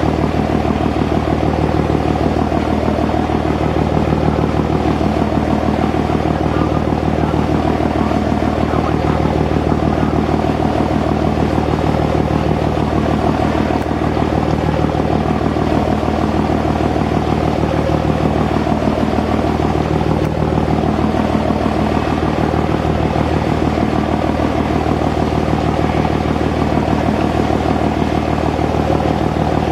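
Diesel engines of the triple-deck passenger ferry Xin Fei running steadily as it manoeuvres, a constant low drone with an even hum.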